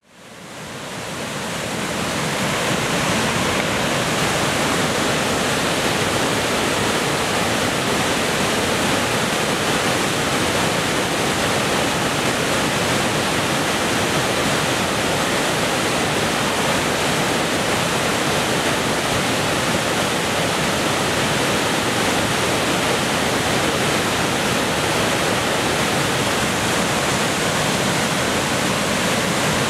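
Rushing whitewater of a river in flood, a steady, even rush of water that fades in over the first couple of seconds.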